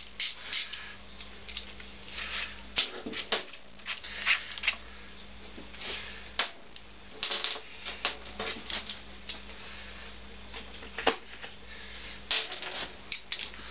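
Hand tools clicking and clinking on metal as bolts and nuts are undone on a motorcycle engine, with short runs of rapid clicks and single sharp knocks.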